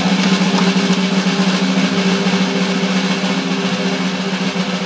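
Drum kit played in a fast solo: rapid stick strokes kept up without a break.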